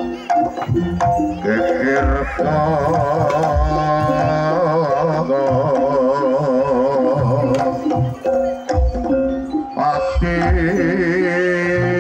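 Javanese jaranan ensemble music: hand-drum beats under a wavering, vibrato-laden melody line that enters about a second and a half in, breaks near the end and comes back higher.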